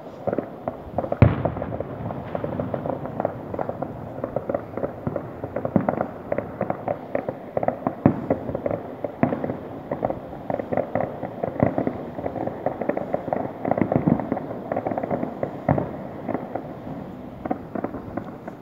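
Fireworks going off: a dense, continuous string of bangs and crackles from many aerial shells bursting, with the loudest single bang about a second in.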